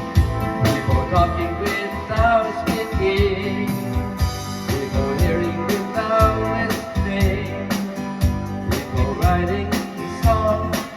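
A song playing: a melody line over bass and a steady drum beat.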